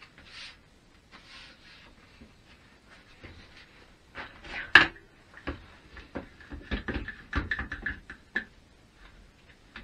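Thin board being handled on a workbench, with one sharp knock a little under halfway through, then a one-handed quick-grip bar clamp being squeezed onto the board's edge: a quick run of squeaky clicks lasting about three seconds.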